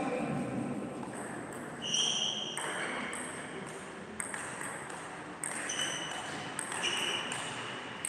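Table tennis being played: the ball clicking off bats and table at an irregular pace, with several short, high-pitched squeaks in between.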